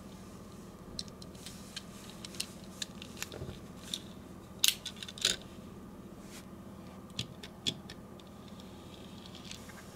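Light clicks and taps from a Tomica die-cast Nissan Skyline 2000 GT-R (KPGC110) model being handled: its small opening door worked open and shut, and fingers and nails on the metal body. The clicks are scattered over several seconds, with the loudest pair about halfway through. A steady low hum runs underneath.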